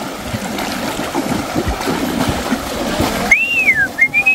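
Water splashing and sloshing as animals wade through shallow floodwater. About three seconds in comes a high whistle that rises and falls, followed by a few short rising whistle notes.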